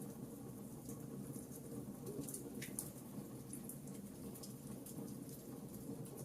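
Wood campfire crackling: scattered small sharp pops and snaps over a steady low rumble of the burning fire.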